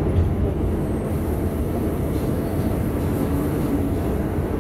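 Bombardier R142 New York City subway car running at speed between stations: a steady, low noise of wheels on rail and running gear.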